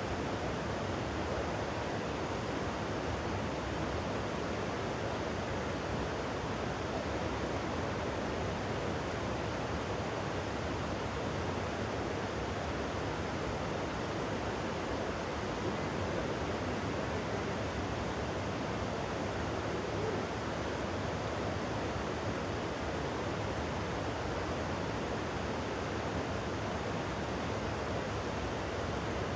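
Steady rushing water noise from a shallow river flowing, with rain, even and unchanging throughout.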